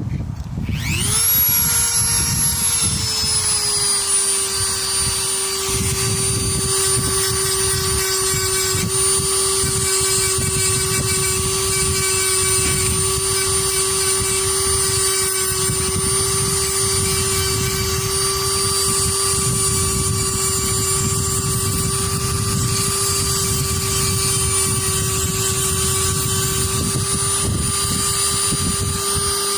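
Handheld rotary tool spinning up and running at a steady high whine, its pitch sagging a little a few seconds in and then holding, with a gritty rasp under the whine as the bit grinds the pliers' jaws to sharpen them.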